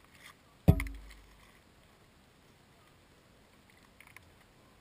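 A single dull thump close to the microphone about half a second in, dying away over most of a second, with faint rustling before it and a couple of small clicks near the end, as a backpack beside the camera is handled and moved.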